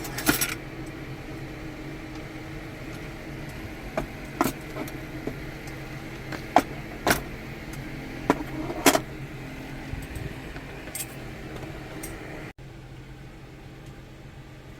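A steady low hum with about seven sharp clinks or knocks scattered through it, the loudest two near the middle; the hum changes abruptly near the end.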